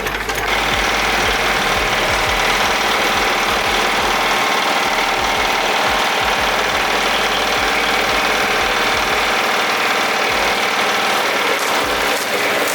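Bamboo splitting machine running with a loud, steady mechanical noise and hum, coming up to full level about half a second in.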